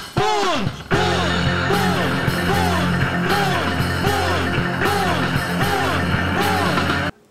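Background music: repeated swooping notes that rise and fall over a steady low bass that comes in about a second in. It cuts off abruptly just before the end.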